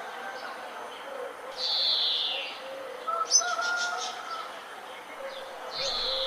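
Birds calling in a morning chorus. A loud call slides downward twice, about a second and a half in and again near the end, with a quick cluster of sharp chirps just past halfway. Fainter bird notes carry on underneath throughout.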